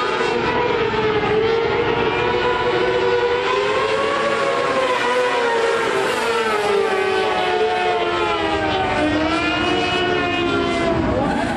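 Micro sprint car's motorcycle engine running at high revs as the car laps a dirt oval, its whining note rising and falling through the corners and straights, climbing about four seconds in, dipping lower near nine seconds and rising again near the end.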